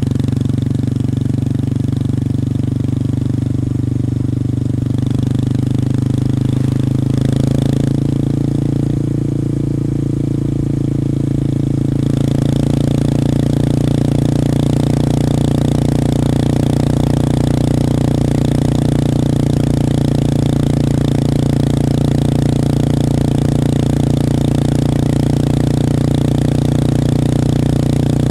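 Honda Grom's 125 cc single-cylinder engine running through an aftermarket stainless exhaust with the baffle fitted, heard from the bike while riding at easy cruising revs around 5,000 rpm. The note changes a few times in the first twelve seconds, then holds steady.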